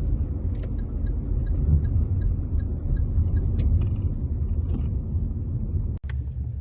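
Car driving on the road, heard from inside the cabin: a steady low rumble of road and engine noise, cut off briefly near the end.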